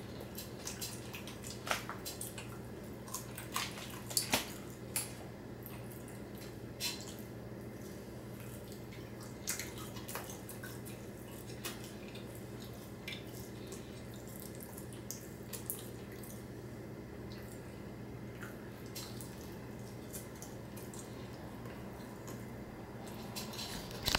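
A person chewing food, with irregular wet mouth clicks and smacks that come thickest in the first few seconds and then thin out, over a steady low hum.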